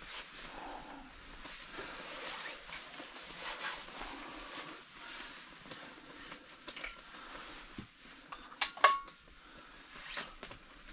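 A steel vacuum thermos being handled and its cap unscrewed, with rustling of winter clothing and small clicks over a faint steady hiss. A couple of sharp clicks with a brief squeak come about nine seconds in, as the stopper comes free.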